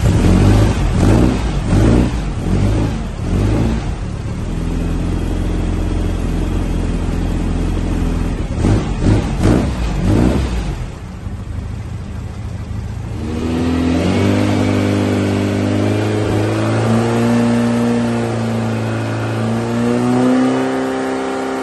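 2332cc air-cooled VW flat-four Baja engine with a stainless buggy exhaust, running on an engine stand. It is blipped sharply several times, then held at a steady speed. About halfway through it drops back briefly, then is brought up to a higher steady speed.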